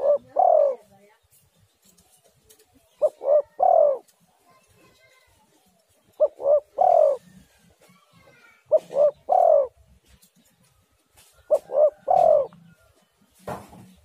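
Spotted dove (tekukur) cooing: each phrase is two short coos and then a longer, drawn-out coo. The phrase repeats about every three seconds, five times.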